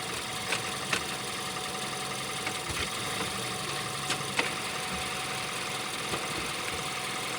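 Skoda Yeti 1.2 TSI engine running steadily, with several short sharp knocks and a low thud near the middle. These are the kind of clunk the owner hears from the six-speed manual driveline when pulling away or moving between engine braking and acceleration, cause unknown.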